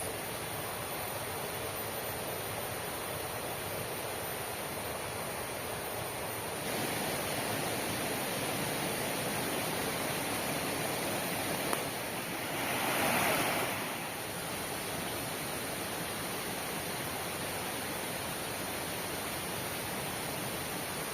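Heavy rain falling steadily, an even hiss that steps up a little about seven seconds in, with a brief louder rush of noise around thirteen seconds.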